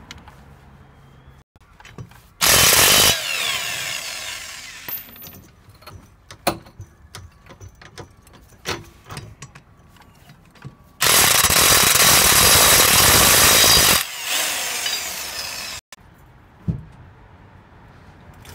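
Corded electric impact wrench running in two bursts on the wheel nuts, each loud at first and then quieter for a second or two. Short knocks and clinks come between the bursts.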